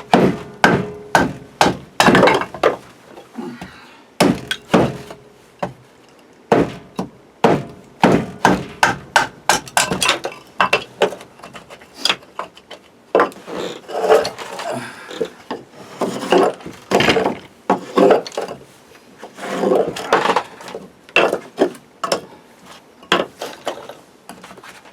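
Axe chopping and splitting firewood: a long run of sharp, irregular wooden strikes, some in quick succession, with split pieces knocking together.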